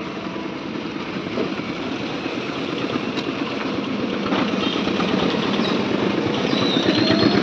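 A motor vehicle's engine running steadily, growing gradually louder, with a faint high whine near the end.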